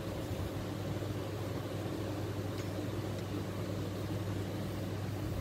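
Steady low machine hum with a light hiss, like a fan or motor running, and two faint clicks in the middle.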